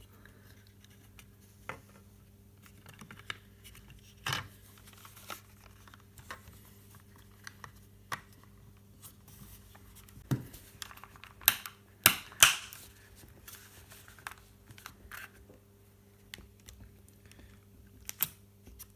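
Scattered small clicks, taps and rustles of plastic drone parts being handled and pressed together as a DJI Mavic Pro's GPS module is plugged in and refitted, with a handful of sharper clicks about eleven to twelve seconds in. A faint steady low hum runs underneath.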